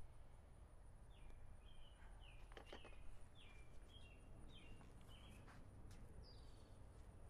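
Near silence with a bird chirping faintly outside: a run of short chirps that each fall in pitch, about one or two a second, from about one second in until past the middle. A few faint clicks come about two and a half seconds in.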